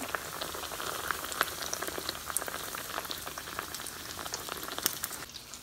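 Flour-and-egg-battered redfish fillet deep-frying in hot oil, just dropped in: a steady sizzle full of rapid small crackles and pops.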